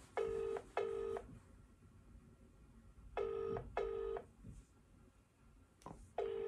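British telephone ringback tone heard through a mobile phone's speaker: paired rings repeating every three seconds. The line is ringing at the other end with no one answering.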